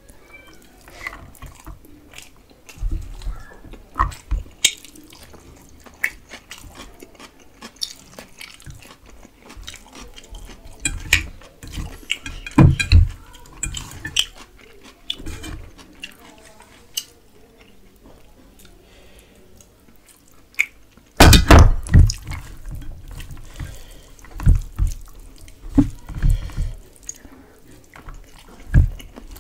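Eating by hand from a steel bowl: fingers squishing rice and curry gravy into handfuls, with wet mouth sounds of chewing and lip smacks in scattered clicks. About two-thirds of the way through comes a brief burst of loud low thumps.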